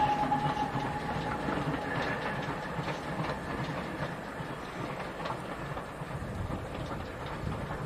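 Steam tank locomotive working along the line: the end of a whistle blast cuts off in the first second, followed by exhaust beats and running noise that fade gradually as the train draws away.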